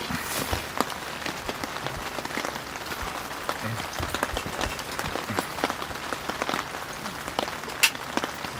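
Rain falling, with many irregular drops ticking and pattering over a steady hiss.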